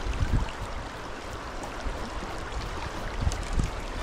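Flowing river rushing steadily, with a few low thumps on the microphone about a third of a second in and twice a little past three seconds.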